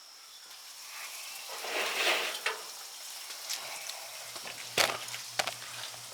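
Camera handling noise as the camera is moved: a rustling swell, then a sharp click about five seconds in and a lighter one just after. A faint, evenly pulsing low hum starts shortly before the clicks.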